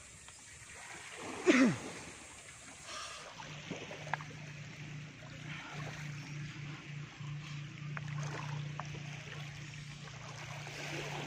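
Small waves lapping and trickling in shallow sea water, with a steady low hum underneath. About a second and a half in comes one short, loud sound that slides steeply down in pitch.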